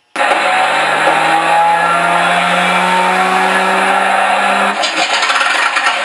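Engine-start sound of a Daimler-Benz aero engine, played loud by a Mr. RC Sound V4 sound module through two 3-inch speakers: it starts abruptly with a steady whining tone, then about four and a half seconds in it changes to a rough, rattling engine run.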